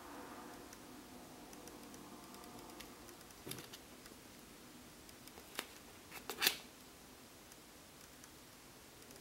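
Handling noise from a clear plastic container held close to the microphone: faint, scattered clicks and taps, one about three and a half seconds in and a quick cluster around six seconds, the loudest near six and a half seconds, over quiet room tone.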